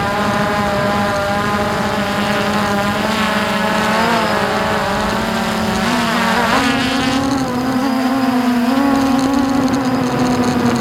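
Hubsan H109S X4 Pro quadcopter's motors and propellers whining steadily, picked up by its own onboard camera. The pitch steps up about six and a half seconds in as the drone climbs.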